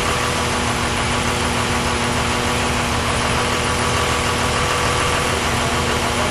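Steady, even drone of a C-5 Galaxy's four turbofan engines as the transport flies low on approach, with a steady whine over the rumble.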